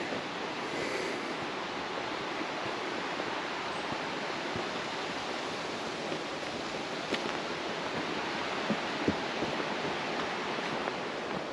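Steady rushing of wind outdoors, with a few short sharp clicks in the second half.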